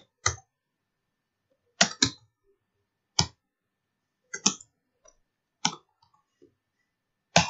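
Computer keyboard keys pressed one at a time: about seven sharp clicks at uneven intervals.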